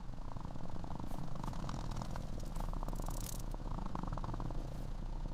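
Cat purring, a steady low rumble.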